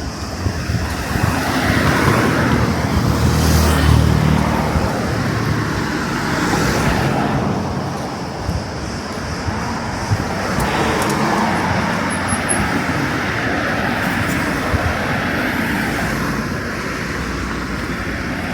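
Road traffic: cars passing one after another, with tyre and engine noise swelling and fading, the loudest pass about three to four seconds in.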